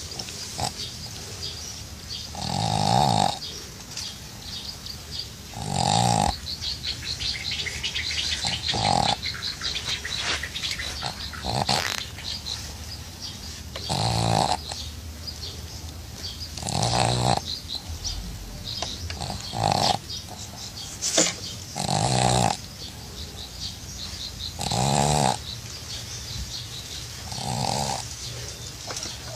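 A pug's snorting, snore-like breaths, about ten of them, one every two and a half to three seconds.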